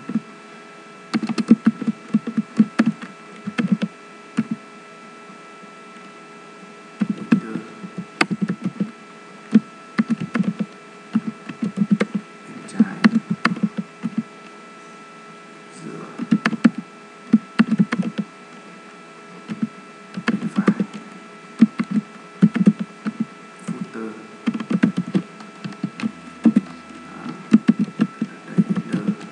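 Typing on a computer keyboard: bursts of rapid keystrokes with pauses of a few seconds between them, over a steady faint electrical hum.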